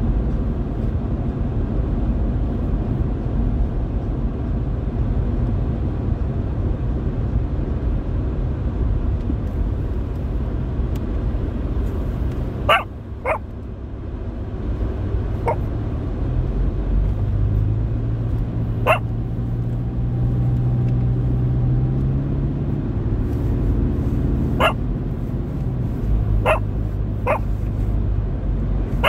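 Steady low road and engine rumble inside a moving car. About halfway through, a dog starts giving short, sharp barks, about seven times at irregular spacing.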